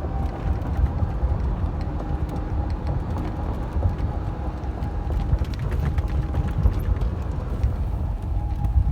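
Golf cart driving, its motor whining at a steady pitch over rattles and clicks from the cart, with strong wind buffeting the microphone.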